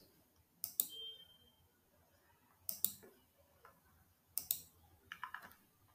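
Computer mouse clicks: three pairs of sharp clicks, about two seconds apart, with a short fainter sound near the end.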